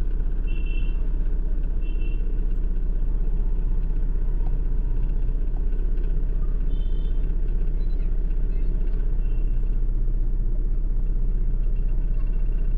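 Honda Civic petrol engine idling rough and unevenly, misfiring on the number 2 cylinder because of an ignition coil circuit fault, with a steady low rumble. A few short high electronic beeps sound over it.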